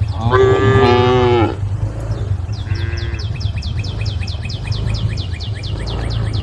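Cow mooing: one loud, drawn-out call falling in pitch, then a fainter short moo about three seconds in. After that a fast run of high chirps, several a second, carries on to the end over a steady low rumble.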